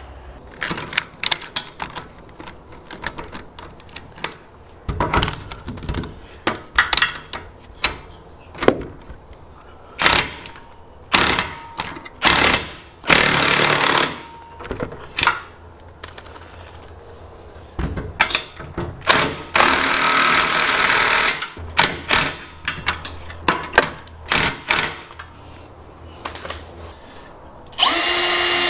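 Metal clicks and knocks of a nut being fitted and tightened onto a bolt through a trailer frame, with a few longer rattling bursts of a few seconds. Near the end a power tool starts and runs steadily.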